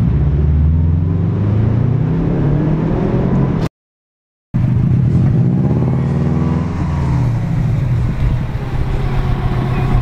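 Car engine revving and accelerating, its pitch climbing and falling as the revs change. The sound cuts out completely for about a second near the four-second mark, then the engine comes back, rising in pitch and dropping again.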